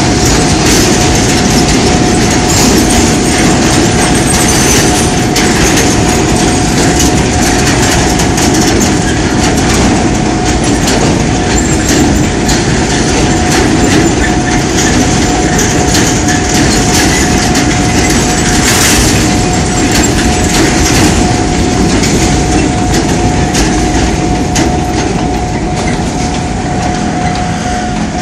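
Empty narrow-gauge sugar-cane wagons rolling past close by, their wheels clicking over the rail joints over a loud, steady rumble. A steady high tone sounds over it throughout.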